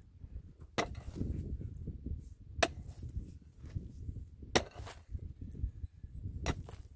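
A digging tool chopping into hard, dry ground to break up the dirt: four sharp strikes about two seconds apart, over a low steady rumble.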